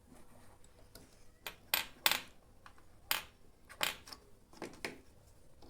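Small metal clicks and clinks from hand tools and parts being handled while a new high-voltage diode is fitted in a microwave oven, about seven sharp ticks at irregular spacing.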